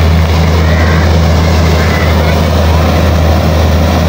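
Combine harvester with a straw-chopper tank running steadily, its diesel engine giving a loud, even low drone under the rush of the machinery.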